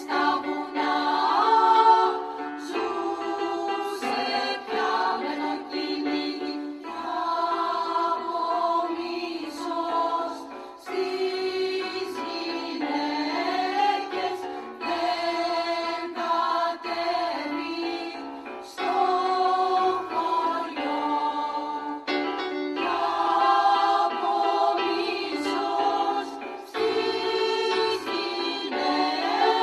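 A choir singing in several parts, mostly women's voices, with held notes changing in phrases.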